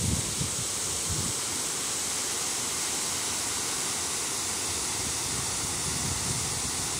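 Water pouring over a low stepped dam spillway: a steady rushing hiss. A few low gusts of wind buffet the microphone in the first second or so.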